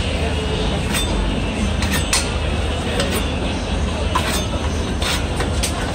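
Metal spatula scraping and clicking on a flat steel griddle, several short irregular scrapes over a steady low rumble.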